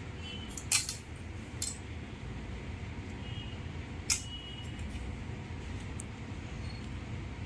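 About three light clicks and clinks of small hard parts, smartphone motherboards being picked up and handled, over a steady low background rumble.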